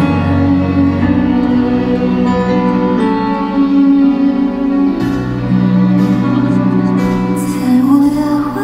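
Live band playing slow, sad instrumental music: long held notes and chords, with no singing.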